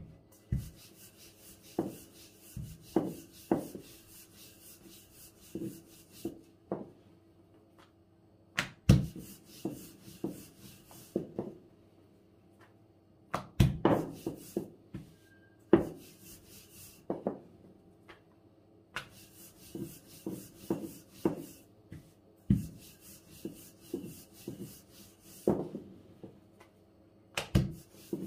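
Long, thin wooden rolling pin rolling out baklava dough on a floured wooden tabletop: hissy rubbing as the pin is rolled back and forth, broken by irregular knocks of the pin and hands against the board.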